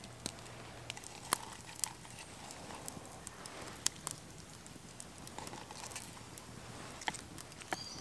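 Quiet handling sounds of salad leaves and sliced peppers being picked from a wooden cup and laid onto a tortilla on a wooden plate: soft rustles with a few sharp, isolated clicks.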